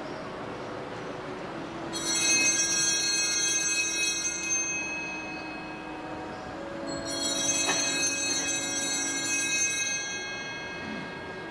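Sanctus bells, a cluster of small altar bells, shaken twice by an altar server: two bright jangling rings about two and seven seconds in, each lasting about three seconds and ringing away, marking the consecration and elevation of the Host at Mass.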